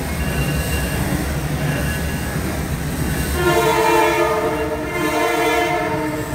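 The decorated boxcars of a freight train rolling past close by with a steady low rumble. A sustained chord of tones sounds over the rumble from about three and a half seconds in until near the end.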